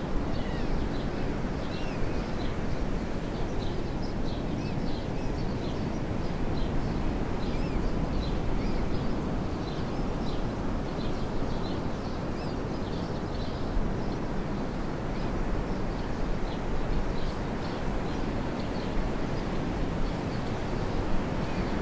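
Steady outdoor rushing noise with many short, high bird chirps scattered throughout.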